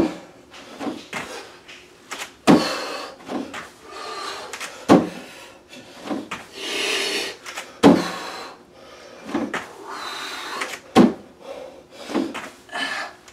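Bare feet landing with thumps on an aerobic step platform and rubber floor during weighted jumping squats, a sharp thump about every two and a half to three seconds, with hard breaths between.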